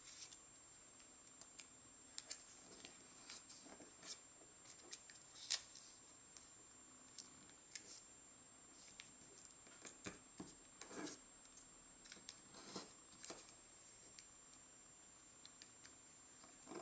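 Faint, irregular crinkles and rustles of origami paper being folded and creased by hand, an edge being brought up to the centre line and pressed flat.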